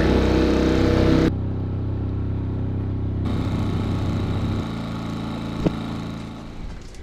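Small gas outboard motor running steadily, its hum stepping down in level about a second in and again past halfway, then fading near the end. A single sharp click comes shortly before the end.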